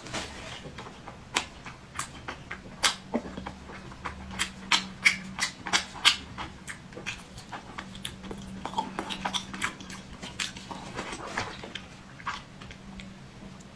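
Close-up wet chewing and lip-smacking of soft, fatty braised pork belly: irregular sticky smacks and clicks, densest in the middle of the stretch.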